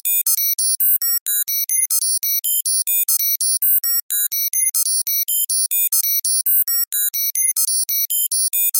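Synthesized 'computer processing data' effect: a rapid, continuous string of short electronic beeps at about five or six a second, jumping randomly between high pitches, like a retro computer crunching data.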